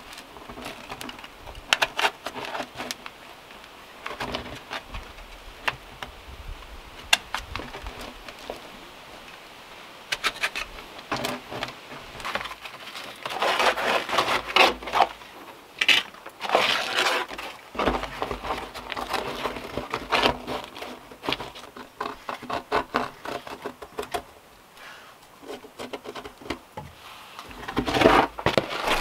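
Hand tools working wood: irregular sharp knocks with longer stretches of scraping and rasping in the middle and again near the end.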